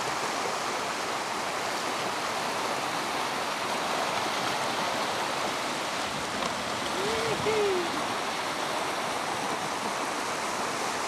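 Steady rush of river water flowing through a cave. About seven seconds in, two short hoot-like calls, each rising and falling.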